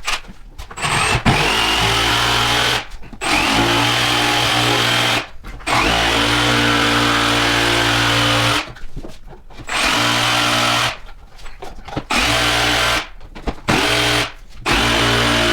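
Power drill drilling holes through the back of a wooden drawer, running at a steady speed in about six spells of one to three seconds each with short stops between.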